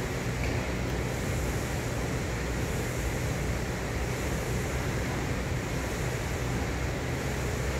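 Ski ergometer's air-resistance flywheel fan whooshing steadily while the handles are pulled down in repeated strokes.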